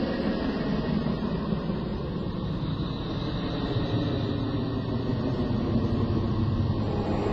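Radio and electromagnetic emissions recorded near Neptune by the Voyager 2 probe, converted to audible sound: a steady, low rumbling drone that swells and fades slowly, with a faint hissing haze above it.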